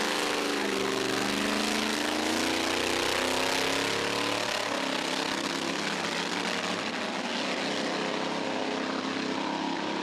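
JCB GT backhoe dragster's Chevrolet V8 engine at full throttle on a drag-strip run. Its note climbs in pitch over the first four seconds, then blurs into a steady loud rush as the machine pulls away down the track.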